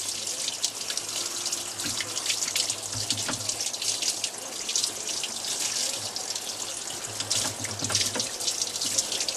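Cooling water running and spattering over a natural stone tile as a 5/16-inch drill bit bores through it, with many small crackles over a steady low motor hum.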